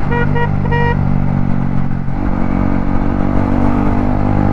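Yamaha MT-15's single-cylinder engine running steadily under way, its note shifting about two seconds in. A vehicle horn gives a few short toots in the first second.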